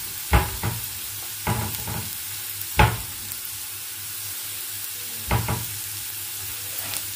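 Chopped onions and dried red chillies sizzling in ghee in a frying pan for a tadka, with a steady hiss. A silicone spatula scrapes and knocks against the pan in a few short strokes, the loudest about three seconds in.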